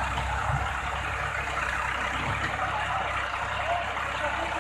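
Massey Ferguson 260 tractor's diesel engine running steadily.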